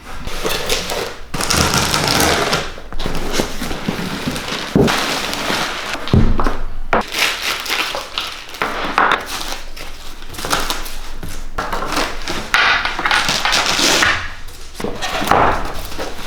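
Panels, dividers and corner pieces of a Gear Box 3500 storage box being handled and set down: irregular rustling and scraping, with a couple of dull thumps about five and six seconds in.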